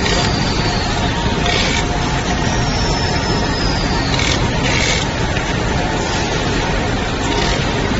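ST-600 automatic handle pasting machine for facial tissue boxes running, a steady dense mechanical noise with faint humming tones. Several short bursts of hissing come through it, and a faint high whistle falls in pitch twice.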